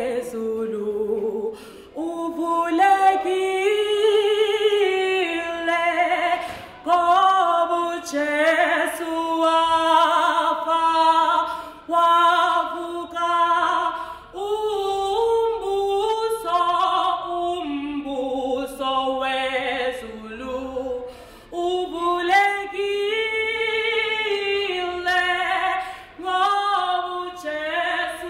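A woman singing solo and unaccompanied, in long phrases broken by short pauses.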